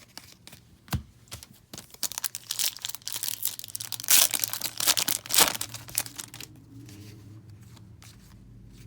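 Foil wrapper of a trading-card pack being torn open and crinkled: a run of crackling rips over a few seconds, loudest about four and five and a half seconds in, then it stops.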